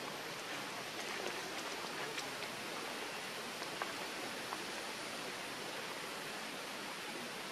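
Steady hissing outdoor forest ambience, with a few faint clicks in the first half.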